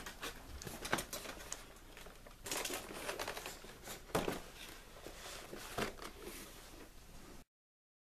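A large cardboard toy box being handled and turned around: scattered rustling, taps and clicks against the cardboard and plastic. The sound cuts off suddenly near the end.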